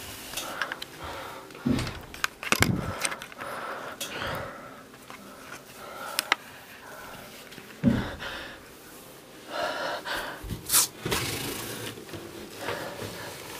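Scattered knocks and bumps from someone moving about with a handheld camera, between stretches of heavy breathing.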